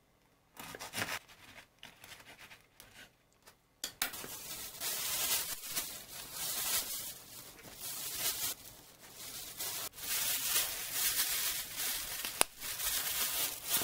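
A bread knife saws through a crusty ciabatta roll in a few short strokes, then a thin plastic bag crinkles and rustles loudly as the rolls are packed into it, with a single sharp click near the end.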